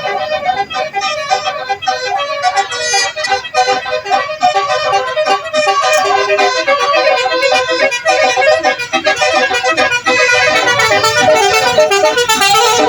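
Telolet horns, a set of multi-tone electric trumpet horns, playing a quick melody note after note, getting louder about halfway through.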